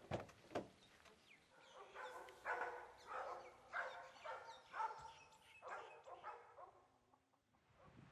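Two sharp clicks, then a faint series of short animal calls repeated about every half second to second before fading out.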